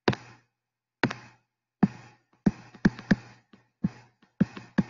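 A stylus tapping on a tablet screen during handwriting: a dozen or so sharp, irregular taps, each with a short fading tail and dead silence between.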